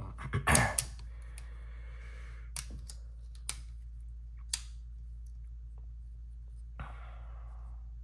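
A man's cough about half a second in, followed by breathing. Then three light clicks about a second apart as the multi-tool is handled, and a long breath near the end, over a steady low hum.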